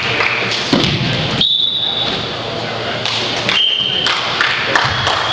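Volleyball game in a gymnasium: players' voices echoing in the hall, with scattered thuds of the ball, and two short high steady tones about a second and a half in and again about three and a half seconds in.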